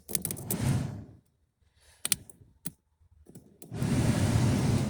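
A ground wire is touched to a car heater blower motor's lead, with clicks and a short burst of rushing in the first second and a few scattered clicks after. About three and a half seconds in, the 1987 Subaru GL wagon's heater blower motor starts and runs steadily, blowing air.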